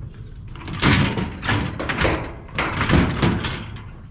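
Scrap metal being piled onto a loaded truck: a run of clattering bangs and knocks, loudest about one second in and again about three seconds in, each ringing briefly.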